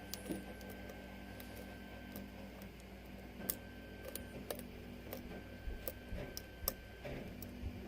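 Faint, irregular small metallic clicks and ticks of a lock pick and tension wrench working the pins of a 6-pin Falcon pin-tumbler lock during single-pin picking, over a low steady hum.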